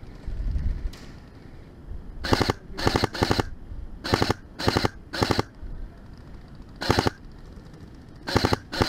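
Airsoft gun firing short bursts of full-auto fire, about eight bursts over roughly six seconds, each a quick rattle of shots. A low rumble comes just before the firing begins.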